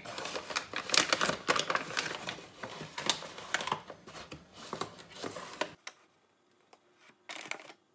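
Rapid light clicking and scraping of a plastic measuring cup scooping flour and tipping it into a glass bowl, stopping abruptly about six seconds in; a few faint clicks follow near the end.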